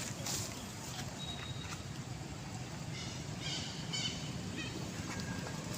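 A few short, high-pitched animal calls in quick succession, about three to four and a half seconds in, over a steady low rumble.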